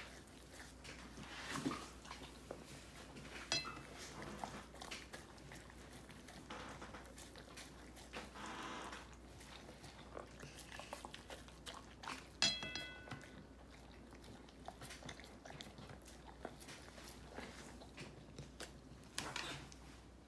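Wolfdog eating raw beef slices from a plate: irregular chewing, licking and lapping with small clicks of teeth and tongue against the plate. Two brief high-pitched squeaks, one about three and a half seconds in and a louder one about twelve seconds in.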